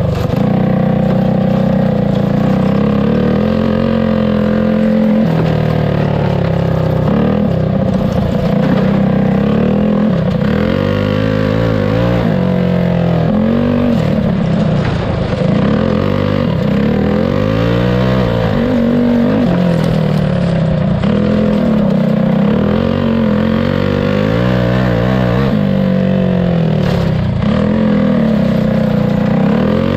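Heavily modified single-cylinder clone go-kart engine, a bored-out 212 cc-type block with a decked, ported and polished head, running hard. It holds high revs for the first few seconds, then its pitch rises and falls again and again as the throttle is opened and closed through the laps.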